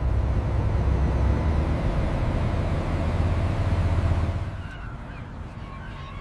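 Deep, loud rumble of a large ship, starting suddenly and holding for about four and a half seconds before dropping away, followed by gulls calling faintly.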